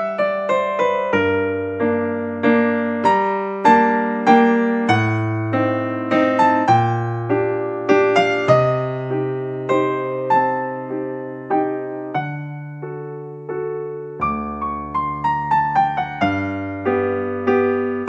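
Background music: piano playing a gentle melody over slowly changing bass notes, each note struck and fading away.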